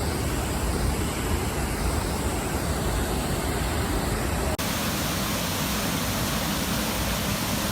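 Waterfall rushing as a steady, loud roar of water; about halfway through it cuts off abruptly to a different, hissier steady rushing noise.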